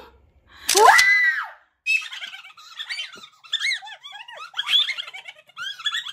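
Two young women squealing with excitement: one loud shriek about a second in, then a string of short, high-pitched squeals.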